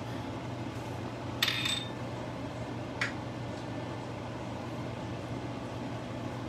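Kitchenware clinking: a bright clink of a small dish against the cooking pot about one and a half seconds in, then a lighter click near three seconds, over a steady low hum.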